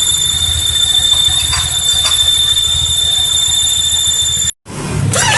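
Honda Vario 125 eSP scooter engine idling with a steady high-pitched whine over its low running sound. The owner traces the whine, heard at idle, to a hardened crankshaft oil seal. The sound cuts off abruptly near the end and picks up again a moment later.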